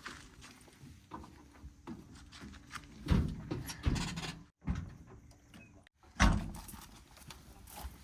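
A low, steady machine hum with several loud knocks and thuds, the loudest about six seconds in, typical of a backhoe bucket working metal and sand; the sound cuts out briefly twice.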